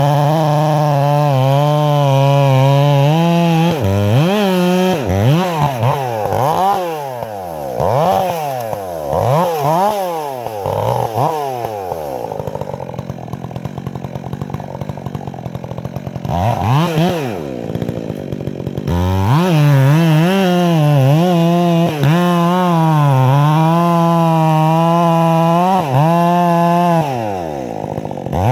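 Stihl MS 400 C two-stroke chainsaw held at steady high revs through a cut, then revved up and down in quick blips about once a second. It drops back to a low idle for a few seconds with one short rev, then runs another long steady high-rev cut, falling away near the end.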